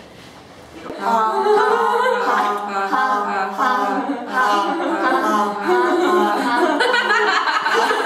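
Several voices singing together a cappella, without instruments, starting about a second in with sustained, wavering notes.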